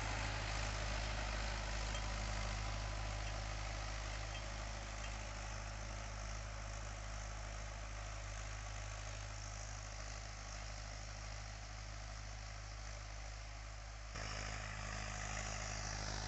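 Mahindra 575 DI tractor's four-cylinder diesel engine running steadily under load while it drives a 6-foot Shaktiman rotavator through the soil. The sound slowly fades as the tractor moves away.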